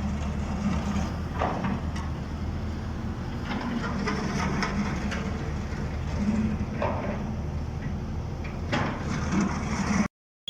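A steady low mechanical hum with a few scattered light clicks and knocks.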